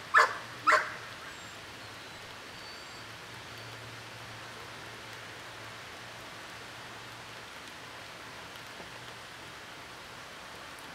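A dog barks twice in quick succession right at the start, then a steady background hiss with a faint low hum.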